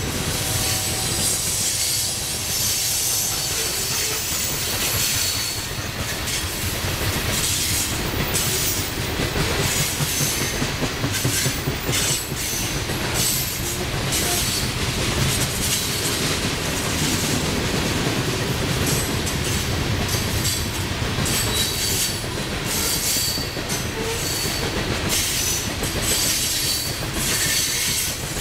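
Coal train's hopper cars rolling past at steady speed, wheels clicking over rail joints, with short high-pitched wheel squeals coming and going.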